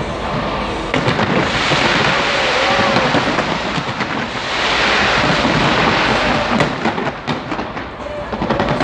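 Aerial fireworks bursting without a break: a dense crackling wash that swells twice, then a quick run of sharp cracks in the last few seconds.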